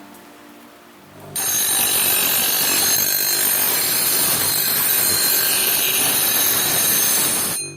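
A tool working the axe with a steady abrasive noise and a thin high whine, cutting in abruptly about a second and a half in and stopping suddenly just before the end.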